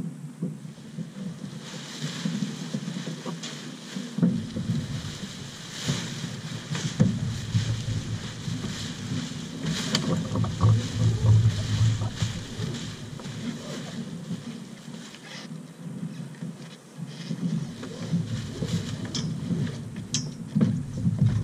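Sailcloth of a spinnaker rustling and crackling as it is hauled down and gathered in by hand, with a low, uneven rumble of wind on the microphone.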